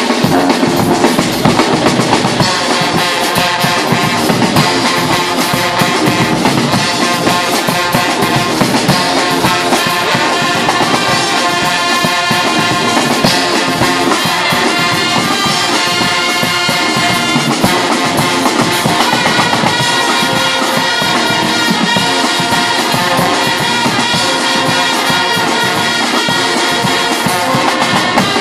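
Guggenmusik carnival band playing loudly: massed trumpets, trombones and tubas over bass drums and cymbals, with steady drum beats running through.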